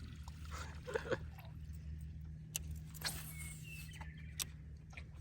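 Small boat motor running steadily with a low hum, with a few sharp clicks and knocks on the boat.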